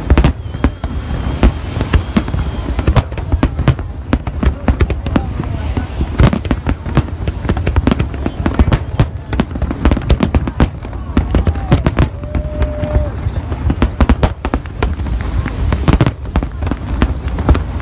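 Fireworks display: many aerial shells bursting in a dense, continuous barrage of sharp bangs and crackles, with deep booms underneath.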